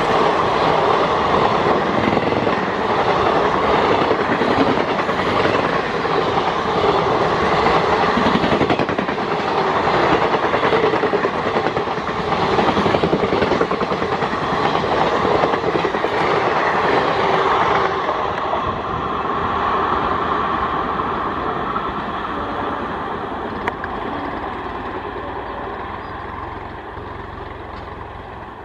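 Passenger coaches of a long train passing close at speed: a loud, steady rush of wheels on rails with some clattering. About 18 seconds in, the sound thins and then fades steadily as the train draws away.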